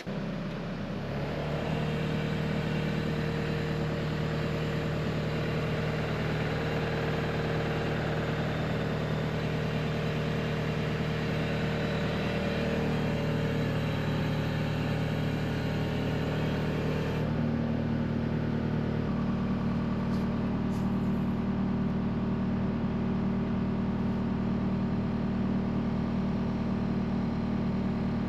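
Skid steer loader's engine running steadily, stepping up to a higher, faster note about 17 seconds in as the throttle is raised.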